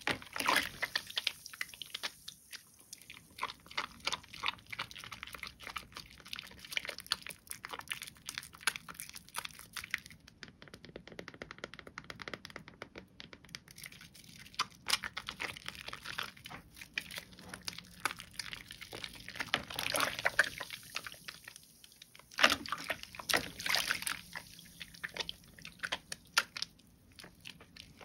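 Soaked, mushy bar soap being lathered into thick foam: a continuous run of wet squelches and fine crackling foam pops, with a few louder squishy bursts past the middle.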